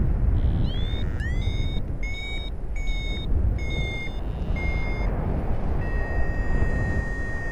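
Paragliding variometer beeping: a string of short high beeps, several sliding up in pitch as they start, then one held, slightly lower tone for about two and a half seconds near the end. Strong wind rumbles on the microphone underneath.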